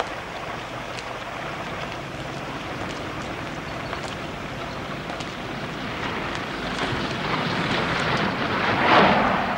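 Steady rain falling, with a motor vehicle approaching on the wet road: its engine and tyre hiss grow louder to a peak near the end.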